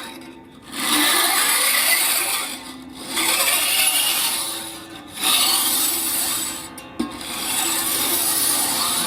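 Glass of a chroma harp being rubbed in four long rasping strokes of about two seconds each, with a faint low ringing tone under the rubbing.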